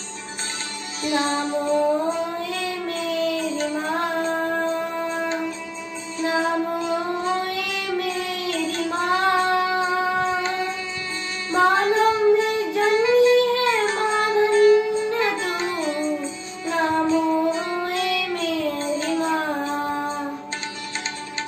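A boy singing a Hindi Marian hymn solo in long, held melodic phrases over a soft instrumental backing. Plucked string accompaniment comes in near the end.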